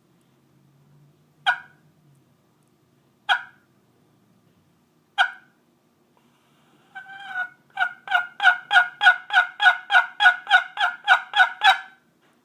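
Hand-made turkey call played by hand, imitating a hen turkey. It gives three single sharp notes about two seconds apart, then a raspy start and a fast, even run of about fourteen yelps at roughly three a second.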